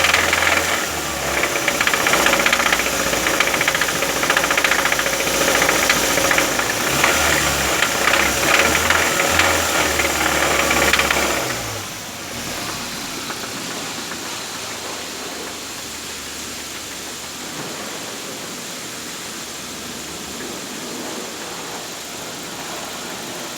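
Car engine running with a rapid ticking, the noise of an engine fault. It runs louder with shifting revs for about the first half, then drops to a quieter, steadier idle.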